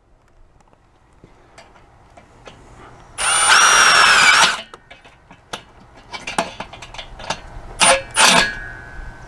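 Cordless drill with a nut driver bit driving self-tapping screws to fix a gate latch to its post: one run of about a second and a half whose whine drops as it stops, then two short trigger blips near the end, amid light clicks and handling knocks.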